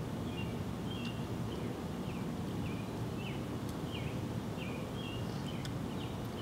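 Outdoor ambience: a steady low background rumble with a short high chirp repeating about every two-thirds of a second.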